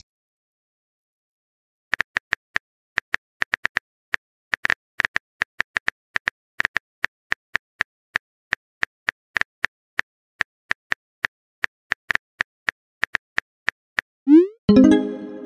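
Phone keyboard typing sound effect: an irregular run of quick clicks, about three or four a second, starting about two seconds in. Near the end comes a rising pop and a short pitched chime, the sound of a chat message being sent.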